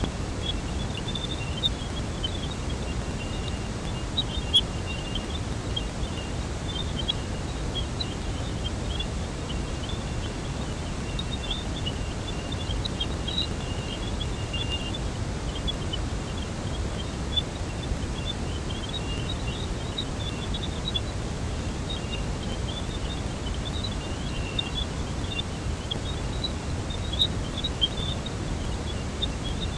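Sonified space recording of radio or plasma-wave signals: a steady hiss and rumble with irregular high chirps and warbles scattered throughout, and a single sharp click about four and a half seconds in.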